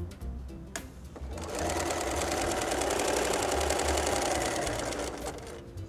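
Bernina electric sewing machine stitching steadily at speed through layered cotton patchwork pieces, a rapid run of needle strokes. It starts about a second in and stops shortly before the end.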